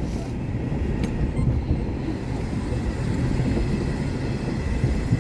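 Low, uneven rumble of a Renault Duster's tyres and suspension on a rough, snowy road, heard from inside the cabin.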